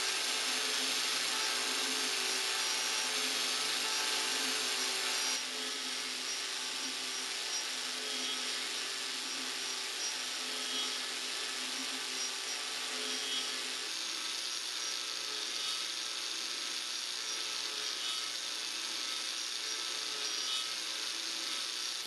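An angle grinder fitted with a Graff Speedcutter carbide-toothed disc runs steadily while cutting along wooden spoke stock on a copy lathe. The disc's teeth have been ground flat. The sound changes abruptly about five seconds in and again near the fourteen-second mark.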